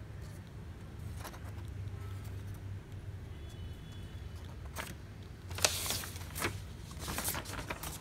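Paper rustling and sharp plastic clicks from a printed sheet and the paper output area of an Epson L-series inkjet printer being handled. The handling starts about five and a half seconds in, over a low steady hum.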